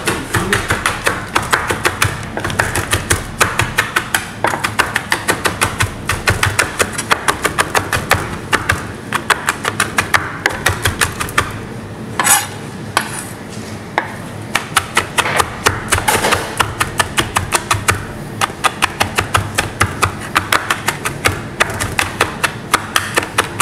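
A large, heavy chef's knife mincing herbs and peppercorns on a plastic cutting board: rapid, rhythmic knocks, several a second, with brief pauses about halfway through.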